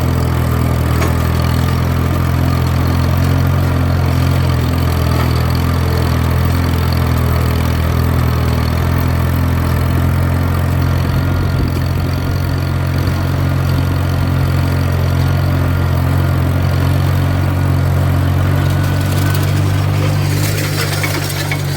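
Tractor engine running steadily as it pulls a disc harrow with its gangs set at an angle for discing. A rougher rattle and hiss rise near the end.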